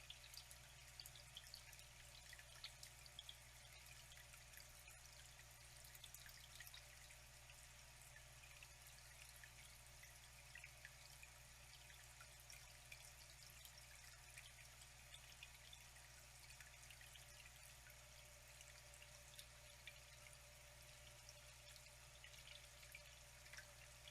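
Faint trickling water with many small irregular drips and splashes, over a steady low hum.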